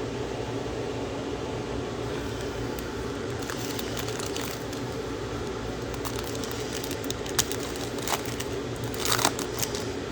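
Plastic trading-card pack wrapper crinkling as it is handled and torn open, with scattered crackles that bunch up near the end, over a steady low hum.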